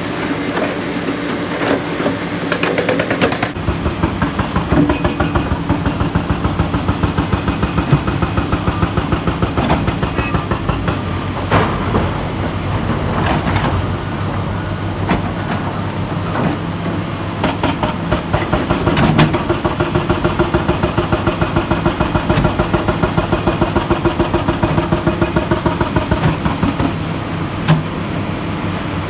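Large Komatsu hydraulic excavator's diesel engine running, a steady low drone with a fast, even beat and a few brief louder surges.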